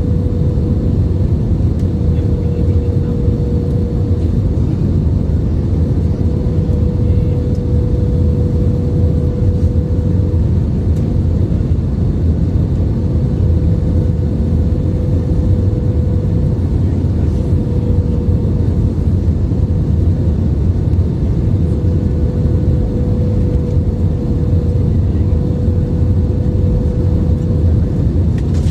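Steady jet airliner cabin noise in flight: engine and airflow noise with a constant hum-like tone running through it.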